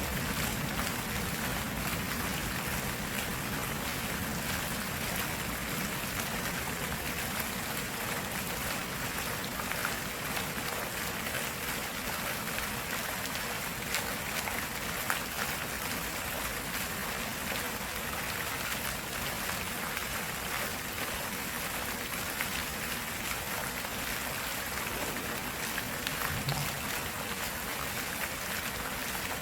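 Flowing water running steadily, an even rushing wash with small splashes and drips through it.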